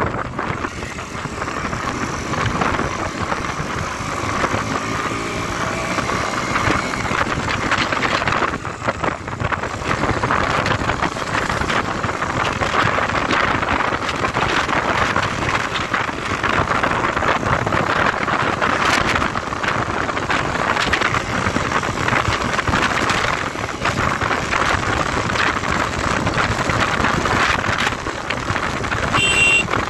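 A KTM Duke motorcycle riding at road speed: steady wind rushing over the microphone, with the single-cylinder engine running underneath.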